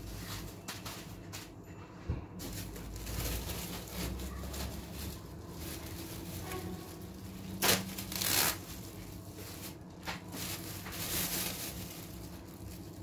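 Thin plastic freezer bags rustling and crinkling as they are handled, a fresh bag pulled off a roll and opened, with two louder crackles of plastic a little past the middle.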